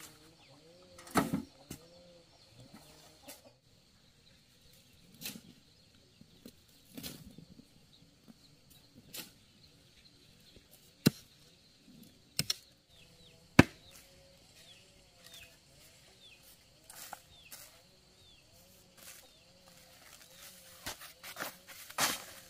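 Steel shovel scooping sand and tipping it into a metal wheelbarrow: soft scrapes of the blade in the sand, with several sharp clanks when it strikes the wheelbarrow's tray. Faint chicken clucking in the background.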